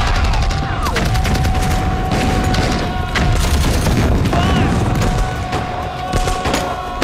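Film battle sound: dense, irregular gunfire with explosions, over a music score holding one steady note, with some shouting.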